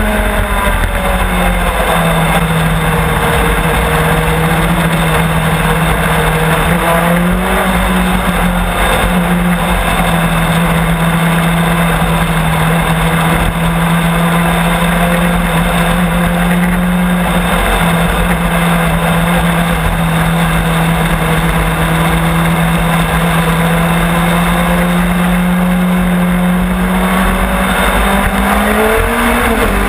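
Onboard sound of a Legends race car's engine, heard over steady wind and road rush. Its pitch drops in the first couple of seconds, holds nearly level while running in the pack, and rises again near the end as the driver gets back on the throttle.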